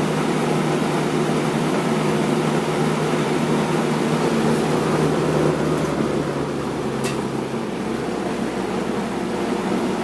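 1984 Robeson 20-inch box fan running, a steady rush of air over a low motor hum. The level eases slightly after about six seconds, with a faint click about seven seconds in.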